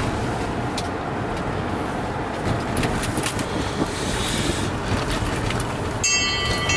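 Engine and road noise heard inside a moving taxi's cabin: a steady rumble and hiss. Near the end a steady ringing tone with several pitches comes in over it.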